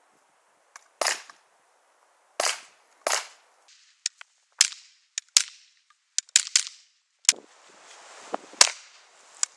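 Suppressed KRISS Vector SBR in .45, fitted with a SilencerCo Omega 45K can, fired semi-automatically: about nine single shots at uneven intervals.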